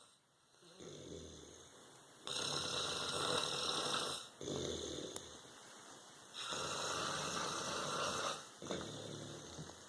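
Someone asleep snoring in slow, regular breaths, about one every four seconds. Each breath has a low rattling part, then a louder rasping part.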